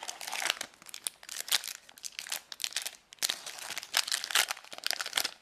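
Crinkling and crackling of a trading-card booster pack's wrapper as it is torn open and handled, in irregular bursts that stop suddenly near the end.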